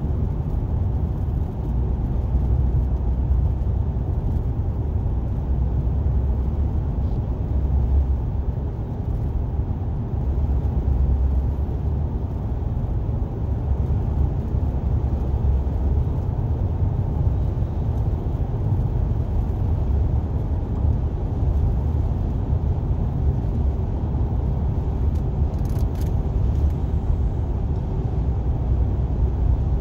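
Steady low rumble of a car driving through a road tunnel, heard from inside the cabin: road and tyre noise with the engine underneath.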